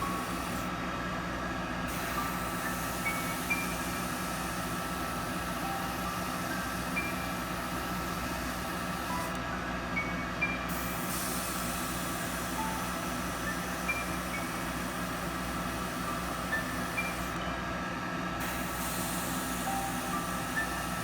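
Background music: a sparse melody of short single notes at changing pitches over a steady sustained backing.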